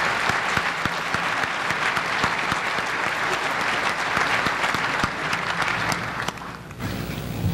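Audience applauding, the clapping dying away about a second before the end.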